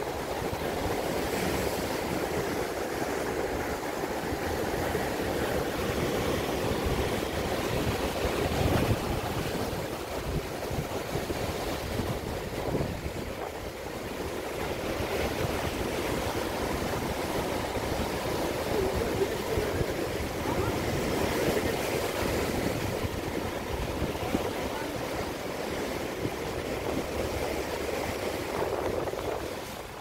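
Sea surf breaking and washing over rocks: a continuous rushing of water that swells and ebbs with each wave, loudest about nine seconds in.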